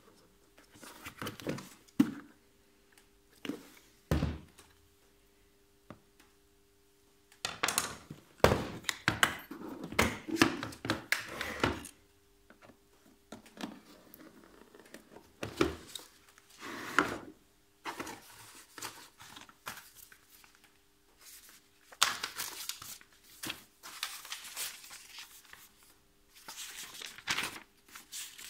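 Unpacking a plastic tool carrying case on a wooden workbench: the hard case knocked and set down with a few sharp thunks, between spells of paper and plastic rustling and crinkling.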